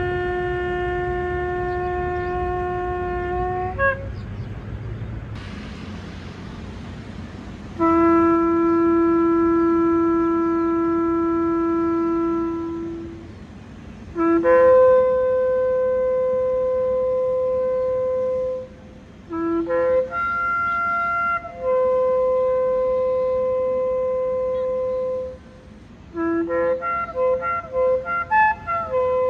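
A shofar blown in a series of long, steady blasts, several starting on a lower note and jumping up to a higher held note. Short gaps separate the blasts, and near the end comes a quick run of short broken notes.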